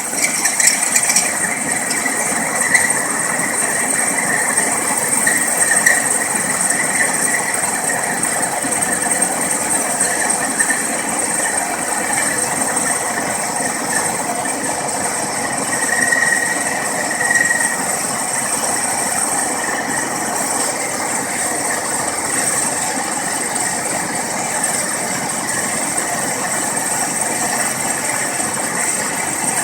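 A machine running steadily, with a constant high whine over an even mechanical noise.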